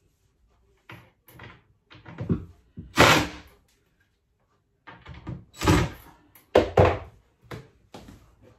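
A cabinet door being handled on its concealed hinges: a run of knocks, bumps and short bangs, the loudest about three seconds in and again twice around six to seven seconds.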